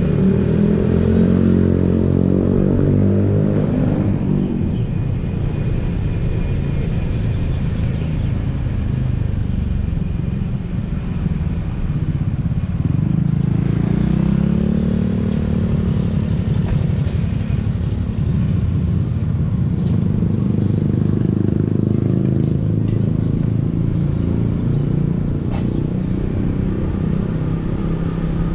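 City street traffic: motorcycle and car engines running past, with a steady low rumble throughout. Two vehicles stand out, one near the start and one about halfway through, their engine pitch sliding as they pass.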